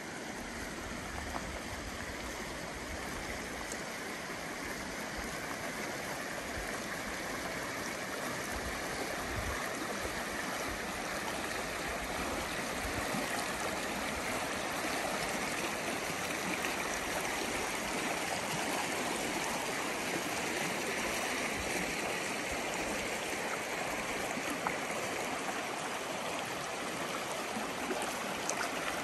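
Shallow mountain creek flowing fast over rocks: a steady rush of water that grows slightly louder as it goes on.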